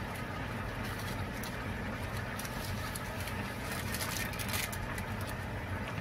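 Pork adobo sauce simmering in an open frying pan, bubbling with a steady patter of small pops over a constant low hum.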